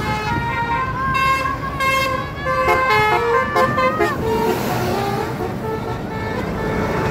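Indonesian bus 'telolet' multi-tone horn playing a melody of short stepped notes, loudest from about one to four seconds in, then fainter. Traffic rumble underneath.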